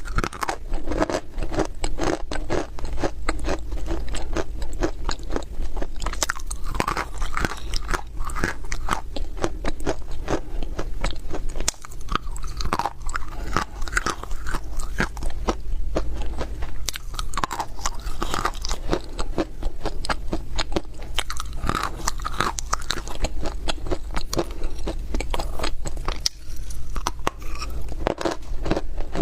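Dry baked clay (loess) being bitten and chewed close to the microphone: a dense, continuous crunching and crackling, with short pauses between bites.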